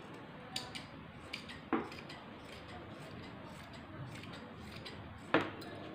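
Scissors cutting through T-shirt fabric, with a few sharp metallic clicks of the blades closing, one just under two seconds in and the loudest near the end.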